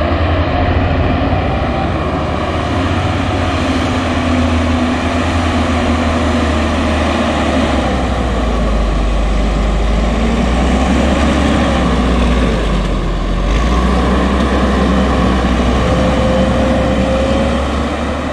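Leitner LH500 snowcat's MAN D2866 diesel working under load as the tracked machine drives over and packs chopped maize silage. It is a steady, loud engine drone whose pitch drifts up and down a little as the load changes.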